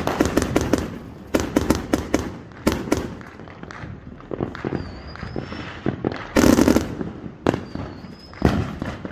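Fireworks going off in a rapid string of bangs and crackles, with the loudest burst about six and a half seconds in. Two short high whistles are heard near the middle and near the end.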